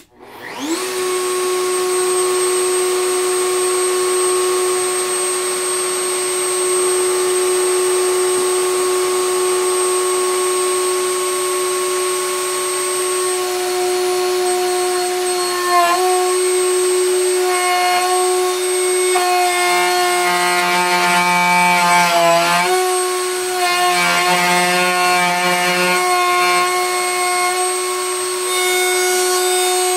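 Table-mounted router spins up with a quick rising whine, then runs at a steady high pitch. In the second half the bit cuts a finger groove into the edge of a butcher-block cutting board, the sound growing rougher, with the pitch dipping briefly under load twice.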